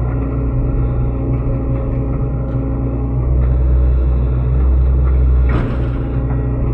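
SANY SY75C mini excavator's diesel engine running under load while digging, its low hum growing heavier for a couple of seconds midway. A single sharp knock comes near the end.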